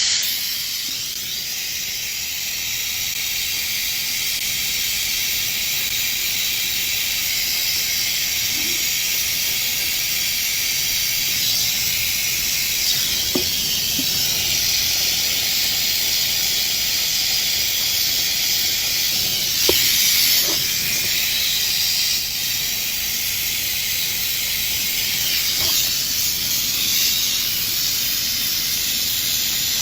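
Steady hiss of gas rushing from a nozzle or line during refrigeration compressor work, with a few faint knocks.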